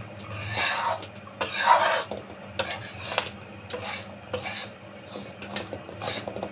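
A flat metal spatula scraping and stirring a dry, crumbly mix of roasted gram flour, powdered sugar and nut powder in a metal kadhai. It makes repeated rasping strokes with small clicks of metal on metal, the loudest strokes in the first two seconds.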